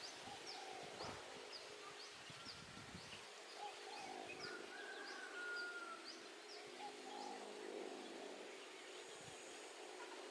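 Faint bird chirping: a steady series of short, high chirps about two a second, with one longer whistled note near the middle. Low wind rumble on the microphone during the first few seconds.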